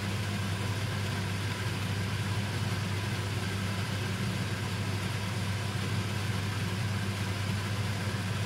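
A steady low hum with a faint hiss, like a small motor running.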